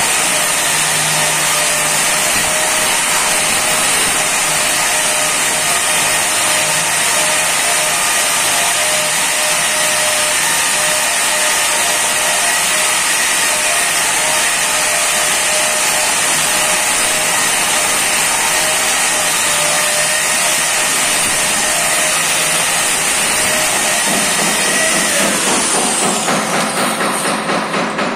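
Electric angle grinder running at full speed against the edge of a granite slab: a steady high whine with a grinding hiss. About 25 seconds in it is switched off and its whine falls away as the disc spins down, followed by a quick run of taps near the end.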